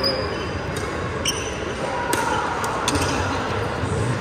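Badminton rally: a string of sharp racket hits on the shuttlecock, about a second apart, with short shoe squeaks on the wooden court floor. Background chatter echoes through the large hall.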